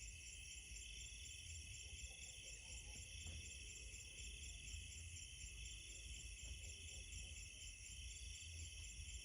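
Night insect chorus: high, steady trilling, with a lower trill that swells and fades about every two seconds, over a faint low rumble.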